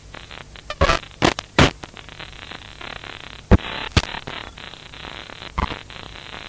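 Crackling static over a low steady hum, broken by several sharp irregular pops, the loudest a little past halfway.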